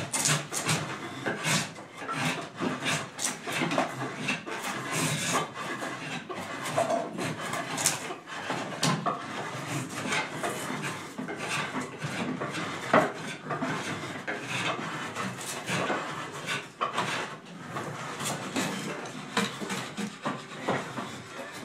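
Draw knives shaving wooden bucket staves on shaving horses, several at once: continuous irregular scraping strokes of steel across wood, with scattered sharp knocks and clatter of wood.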